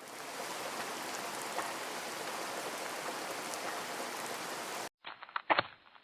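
Steady rain, an even hiss with faint scattered drop ticks, which cuts off abruptly about five seconds in. It is followed by a few sharp knocks.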